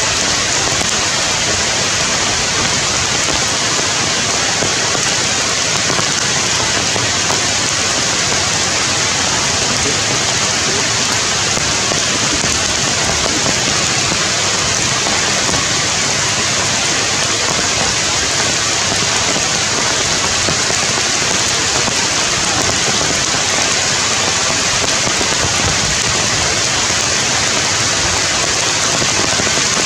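Steady rain: an even hiss without breaks or changes.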